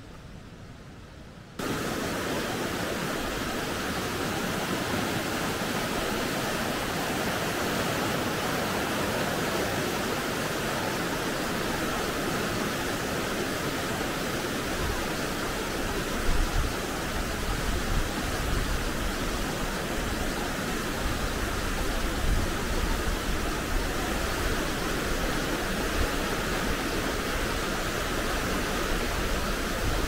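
Steady rushing of water from a rocky mountain stream, starting suddenly about a second and a half in. From about halfway there is an added low, gusty rumble.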